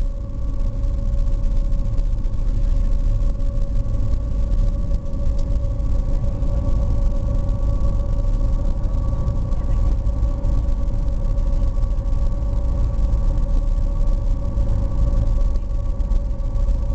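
SeaBus passenger ferry's diesel engines running steadily under way: a constant low drone with a steady whine on top.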